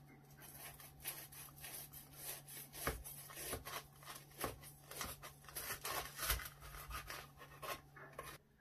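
Knife sawing through the crisp, egg-battered fried crust of a Monte Cristo sandwich, a steady crunchy crackling with a few duller knocks among it, stopping just before the end.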